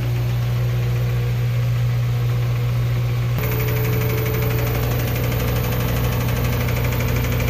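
Kenmore washing machine in its spin cycle, humming steadily. About three seconds in, a fast, even slapping starts: the rubber flap valve on the back of the machine slapping, which is the cause of the loud banging during spin, not the drive block or brake.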